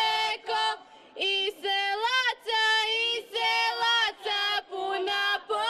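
Female voices singing a Slavonian bećarac folk song in long held notes, with a rise and fall in pitch about two seconds in.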